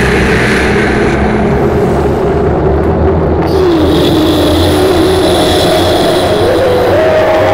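Horror ambience drone: a steady low rumble under a moaning tone that slides down a little past three seconds in and climbs back up near the end.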